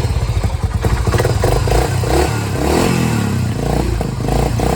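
Honda TRX350 FourTrax ATV's single-cylinder four-stroke engine running at a low speed, its beat dipping and picking back up about midway.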